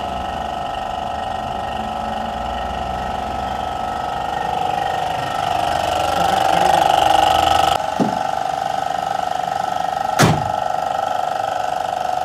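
Suzuki WagonR engine running after a throttle body wash: it idles, then rises in level as the accelerator is pressed from about four seconds in, and cuts off abruptly near eight seconds. Two sharp knocks follow, the second, about ten seconds in, much louder. A steady whine runs underneath throughout.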